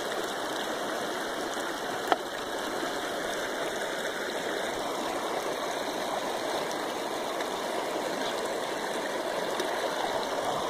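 River water running steadily over rocks in a shallow stretch, an even rushing sound, with one sharp click about two seconds in.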